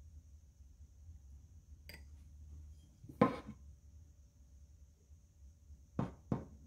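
A faint click, then a sharp knock with a brief ring about three seconds in, and two quick knocks near the end, over a low steady hum: handling knocks on a kitchen counter.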